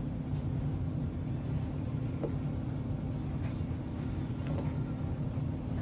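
Steady low rumble of a moving car heard from inside the cabin, with a few faint clicks.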